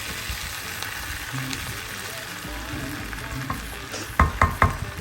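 Food sizzling and frying in a pan while it is stirred. Three sharp, ringing clinks come in quick succession about four seconds in, like a utensil striking the pan.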